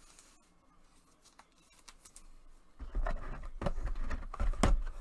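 Close-up handling of a trading card and a plastic sleeve: from about three seconds in, a quick run of crinkles, clicks and dull knocks as the card is slid into the sleeve.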